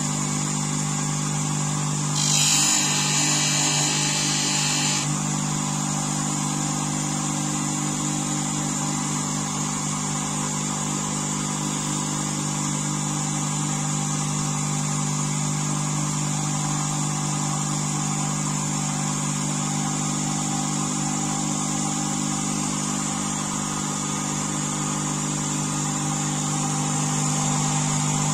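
Bench grinder motor running steadily, spinning a felt buffing wheel used to polish a spoon carving knife's blade. About two seconds in, a louder hiss lasts around three seconds.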